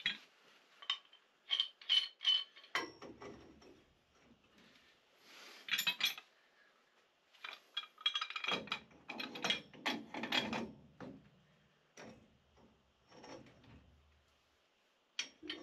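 Two steel pipe wrenches clicking, clinking and rasping on black steel pipe as a threaded joint is tightened against a back wrench. Sharp metal clicks in the first couple of seconds give way to longer grinding, rasping stretches around the middle, then fainter ticks.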